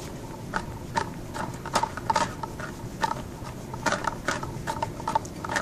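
Irregular light clicks and ticks, roughly three a second, from a hand-spun fire tornado apparatus turning, over a faint steady rush.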